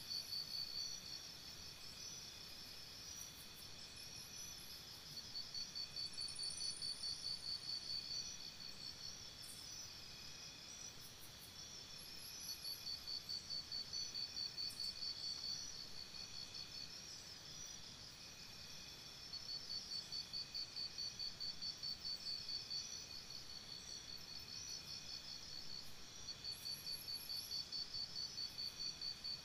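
Crickets chirping in a faint nature ambience: trains of rapid, high, evenly pulsed chirps a few seconds long, repeating throughout over a steady high insect drone.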